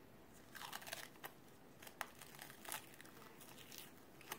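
Adhesive tape and a clear Tegaderm film dressing being peeled off skin: faint crinkling with a few sharp crackles.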